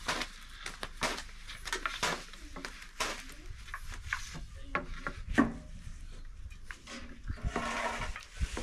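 Thin wooden rolling pins rolling and knocking on round wooden boards as lavash dough is rolled out: irregular light clacks and taps, a few sharper knocks among them.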